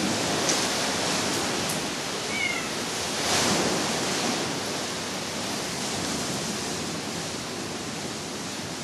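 Strong storm wind blowing in a steady rush, swelling in a gust about three and a half seconds in.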